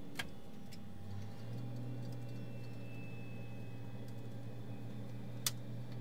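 Aircraft engine running with a steady low hum that steps up slightly in pitch about a second in. A sharp click sounds near the start and a louder one near the end, with a few faint ticks between.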